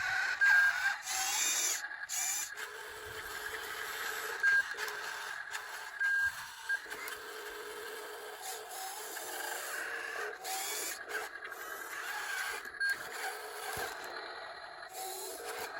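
Small electric motors and gearing of radio-controlled construction models whirring steadily, with a few short louder bursts and brief dropouts.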